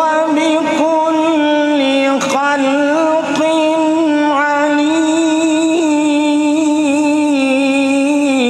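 A man reciting the Quran in melodic tajweed style, holding one long drawn-out note that wavers and steps slightly in pitch.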